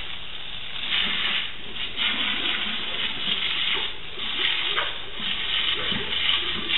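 A jet of water spraying hard, a steady hiss that swells and ebbs.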